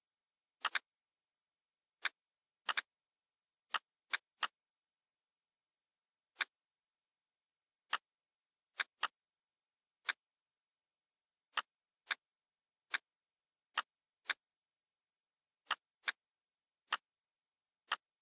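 Computer mouse clicking: single sharp clicks and a few quick double clicks at irregular intervals, about twenty in all, with dead silence between them.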